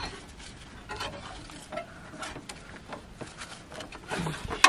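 Scattered light clicks and knocks of metal tools and car parts being handled, with a sharper knock just before the end.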